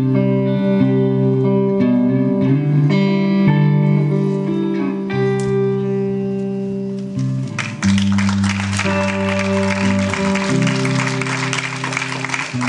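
Electric guitar played through an amplifier, long held notes overlapping and changing about once a second. About eight seconds in, a dense, noisy layer joins the playing.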